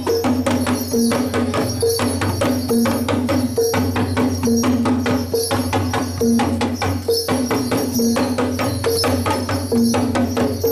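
Javanese Reog Kendang music: small cylindrical drums beaten with sticks in a fast, dense rhythm, over a repeating two-note figure from pitched gongs and a steady low gong hum.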